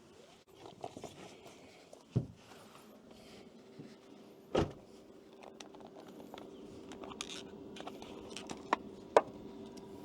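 Air fryer running off an inverter: a steady hum that builds up from about halfway through and holds, with a few knocks and clicks of handling, the loudest a knock about four and a half seconds in.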